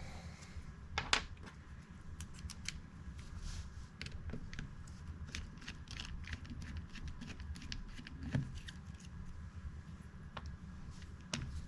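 Light, irregular clicks and taps of a Kershaw folding pocket knife's small metal parts being handled during teardown, with a louder knock about a second in and two more later on.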